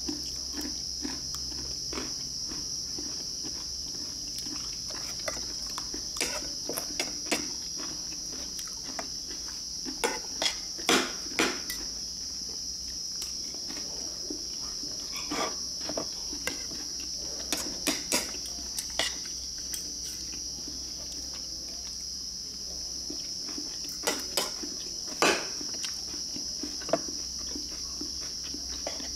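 Eating sounds at a table: chewing and lip smacks with spoons clicking against ceramic bowls in scattered sharp taps, loudest in clusters partway through and near the end. Under them runs a steady, high chirring of crickets.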